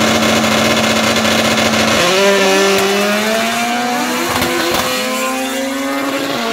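Drag-race launch of an RB30-engined Nissan Patrol against a K24-engined Honda Civic: the engines are held at a steady high rev on the start line, then about two seconds in they launch and accelerate away, engine pitch climbing, dropping at gear changes and climbing again.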